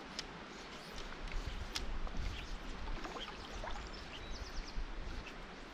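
Outdoor riverside ambience: scattered small bird chirps over a low rumble, with a quick run of chirps a little past the middle.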